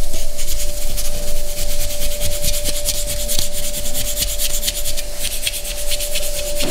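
Sandpaper rubbed by hand in quick, short strokes over the joint between gypsum decorative wall panels, smoothing the seam away.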